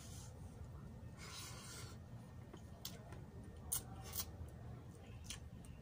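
Quiet sounds of eating chicken adobo by hand: a few sharp clicks and smacks as the meat is picked apart with the fingers and chewed, loudest a little under four seconds in, over a low steady hum.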